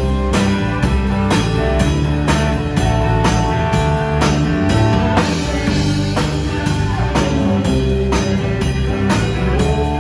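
Live country band playing an instrumental stretch: a steady drum kit beat under bass, electric and acoustic guitars and a fiddle, with held lead notes and no singing.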